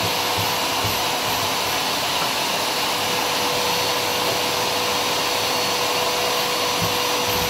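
Wet-and-dry drum vacuum cleaner running steadily on a carpet, a constant rush of suction with a steady whine from its motor.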